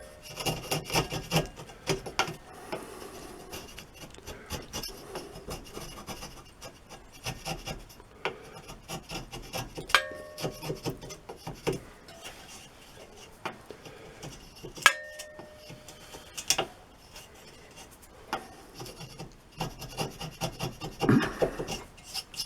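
Wood chisel paring and scraping a small wooden patch piece by hand in irregular short strokes, with two sharp metallic clicks that ring briefly, about ten and fifteen seconds in.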